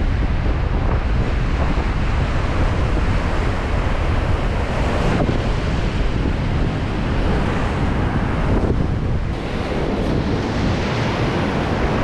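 Rough sea surging and breaking in a gale, with strong wind buffeting the microphone as a deep, continuous rumble.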